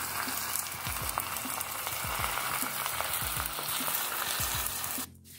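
Cornish hen frying skin-down in olive oil and butter in a cast-iron pan: a steady sizzle that cuts off abruptly near the end.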